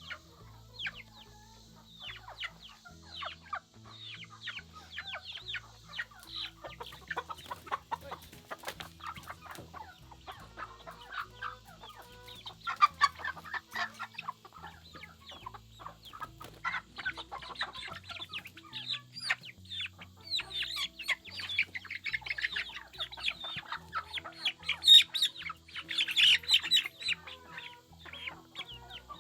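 A flock of young chickens peeping and chirping, many short high falling chirps overlapping, growing busier and louder from about halfway through.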